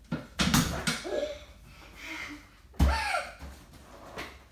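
Knocks and rattles from a home gymnastics bar's metal frame as a child swings on it, then a heavier thump about three seconds in as she drops onto the foam mat.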